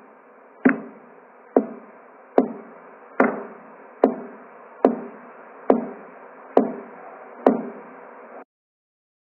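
Heartbeat sounds from a heart-sound app: a steady rhythm of sharp beats about 70 a minute, each dying away quickly, over a constant hiss. The sound stops suddenly near the end.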